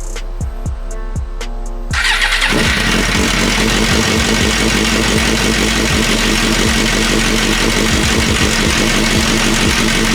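Music with a beat, then about two seconds in a 2005 Suzuki GSX-R750's inline-four engine cranks and catches, and runs steadily at idle on a test start after a clutch plate replacement.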